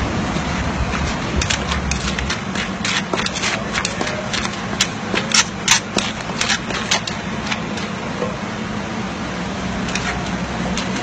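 Quick, irregular knocks and clicks from papaya salad being prepared by hand, loudest around the middle, over a steady low background rumble.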